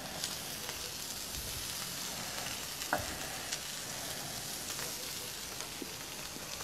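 Wagyu steak pieces sizzling on a gas grill's grate, a steady hiss with scattered small pops of spitting fat. A single light knock about three seconds in.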